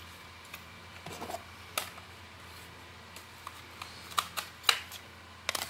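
Plastic audio cassettes and their cases clicking and clacking as they are handled: scattered sharp clicks, with the loudest few coming around four to five seconds in.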